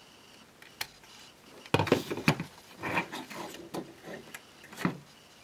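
Hard plastic transforming-robot toy being handled and set down on a tabletop. A single click, then from about two seconds in a run of clicks and knocks as its plastic parts are pressed and shifted.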